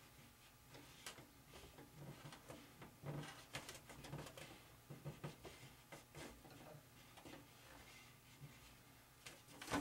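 Faint handling noise: scattered light clicks and rubbing of fingers over the covering of an RC airplane wing while feeling for a screw hole.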